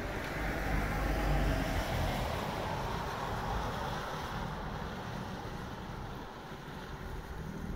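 A car driving through floodwater on a road, its tyres hissing through standing water. The hiss swells in the first second or two and then slowly fades, over a low rumble.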